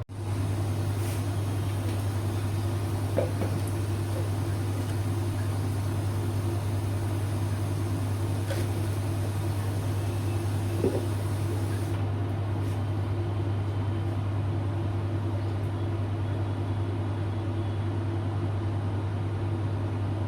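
Steady low electrical hum of a kitchen machine such as a fan motor, unchanging throughout, with two faint ticks about 3 and 11 seconds in.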